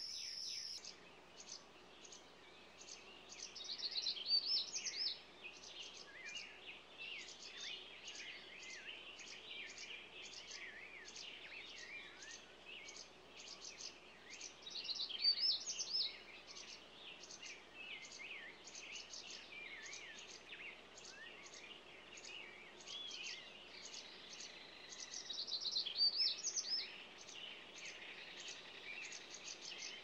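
Small songbirds chirping and twittering throughout, with high, quick chirps repeating steadily and louder bursts of song three times, about every eleven seconds.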